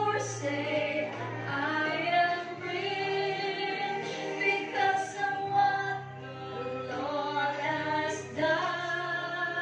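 A group singing a praise and worship song, mostly women's voices, over music with a low bass line.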